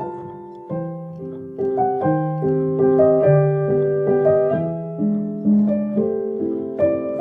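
Solo piano music: a slow, gentle melody over sustained lower notes, with a new note or chord struck about every half second.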